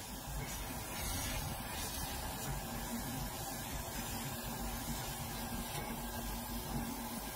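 Laser cutter cutting a wooden board: a steady hiss, with a low hum that comes in about two and a half seconds in and drops out near the end.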